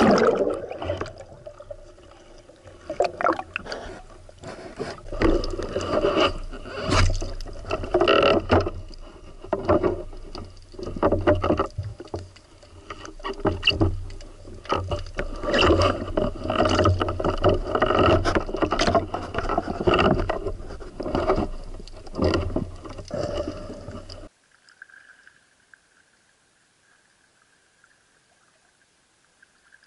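Water and handling noise picked up by a camera in a waterproof housing as it plunges under the sea: a sudden splash at the start, then muffled irregular knocks, sloshing and rushing water while the diver swims. The noise stops abruptly with about five seconds to go.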